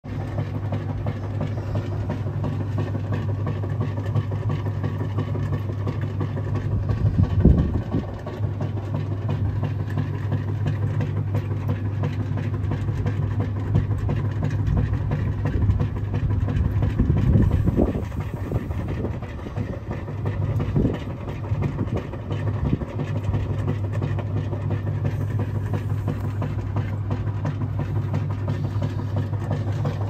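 Maytag Heritage top-loading washing machine running, a steady low motor hum with a few louder bursts, the strongest about seven and seventeen seconds in.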